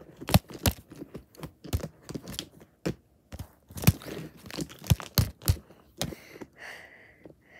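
Hard plastic animal figurines clacking and knocking against each other and scuffing on carpet in a mock fight: an irregular run of sharp clacks and thuds. A breathy whisper near the end.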